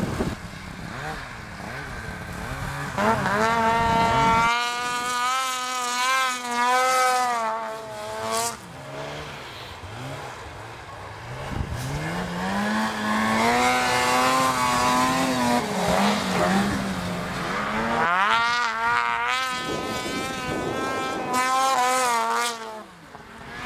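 Snowmobile engines running hard in three separate passes, the pitch wavering, rising and falling with each.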